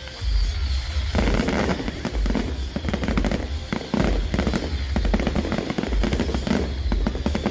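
Fireworks going off in rapid succession, a dense string of cracks and bangs, starting about a second in. Music with a heavy bass beat plays under them.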